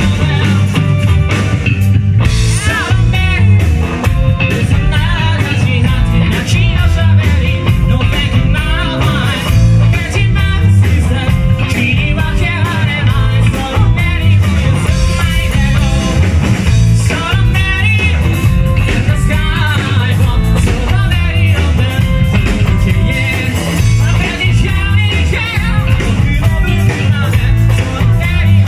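Live rock band playing loud: a male vocalist singing over electric guitar, electric bass and a drum kit with a steady beat, recorded from the audience in a club.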